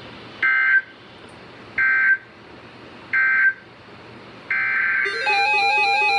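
Three short bursts of EAS SAME digital data tones, the end-of-message code that closes a broadcast alert. Each is a harsh two-tone warble, about 1.4 s apart, over faint hiss. About 4.5 s in a longer data burst starts, and from about 5 s a repeating, stepping electronic tone melody plays over it.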